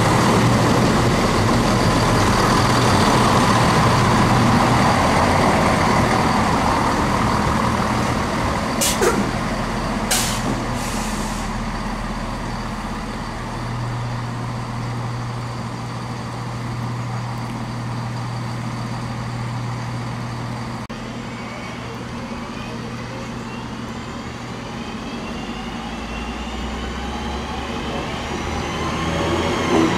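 Train's engine running steadily, with two short sharp hisses about nine and ten seconds in. Near the end, rising whines climb as the engine note changes.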